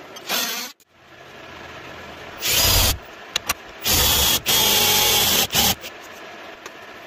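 Cordless drill/driver running in a series of short bursts, the longest about a second, as it bores into the end grain at the corner of a dovetailed hardwood box.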